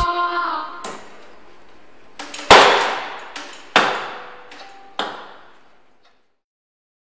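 Dropped payphone handset swinging on its cord and clanking against the metal phone box and shelf. Four sharp knocks come about a second apart, the second the loudest, each ringing out in an echo.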